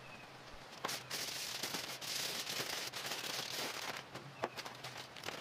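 Aluminium foil crinkling and crackling as it is folded and pressed around ribs, a dense run of quick crackles starting about a second in and easing off near the end.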